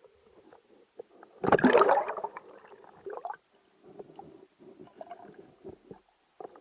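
Water bubbling and gurgling around an underwater microphone. About a second and a half in there is a loud rush of bubbles lasting under a second, then a smaller one, then scattered soft gurgles.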